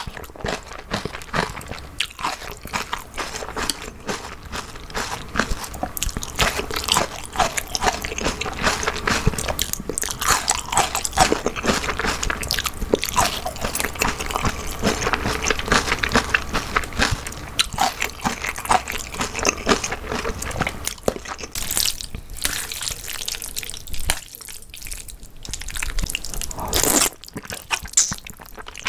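Close-miked chewing of a mouthful of jjajangmyeon (black bean noodles): wet smacking and crunching mouth sounds, with a short quieter pause a little before the end.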